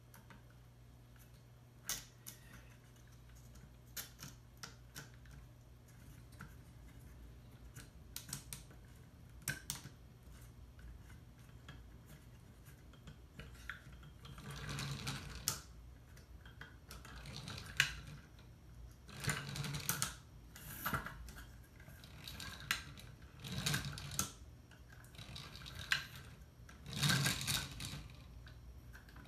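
Scattered light wooden clicks as plywood parts are handled, then, from about halfway, the wooden gears and lever mechanism of a UGears Mechanical Etui model box clattering in repeated bursts every second or two as it is worked up and down. The mechanism is still stiff and needs a little force.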